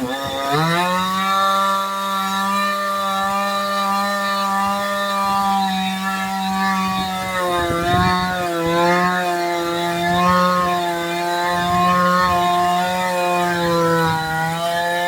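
Two-stroke chainsaw running at high revs with a steady high drone. It picks up again just after the start, then wavers up and down in pitch through the second half.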